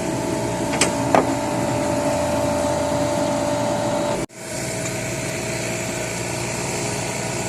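Refrigeration machinery running with a steady hum and a held tone, with two light clicks about a second in. The sound cuts out for an instant a little after four seconds, then the steady running resumes with the tone weaker.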